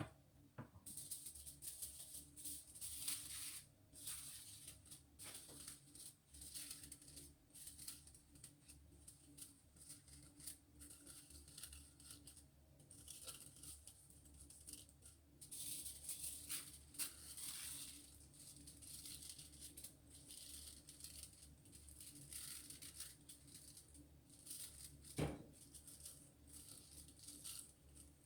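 Aluminium foil crinkling and rustling in irregular bursts as it is handled, with one sharp knock near the end.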